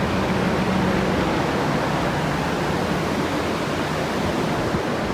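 Flood-drying equipment, a mass of fans and air blowers pushing hot air through the building, running as a loud, steady rush of moving air with a faint low hum. It is the sound of a flooded building being dried out.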